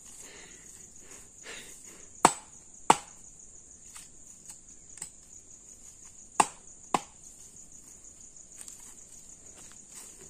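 Four sharp cracks of dry wood as a fallen branch is broken up, in two pairs about half a second apart, a little over two seconds in and again about six seconds in, with fainter knocks between. A steady high-pitched insect trill runs underneath.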